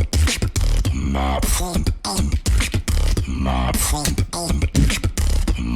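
Human beatboxing: a dense rhythm of sharp mouth clicks and snares over deep bass, with hummed pitched vocal lines that bend in pitch woven between the hits.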